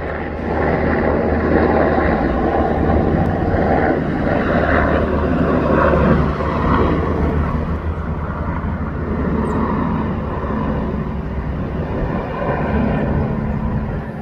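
Helicopter flying overhead: a steady low drone of rotor and turbine that swells about half a second in, is loudest around six seconds in, then eases slightly.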